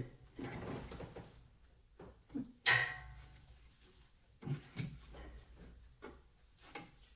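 Scattered clunks and rattles of engine parts being handled and pulled at while a stuck component is worked loose, with one sharp metallic clank that rings briefly just under three seconds in, the loudest sound, and a few lighter knocks after it.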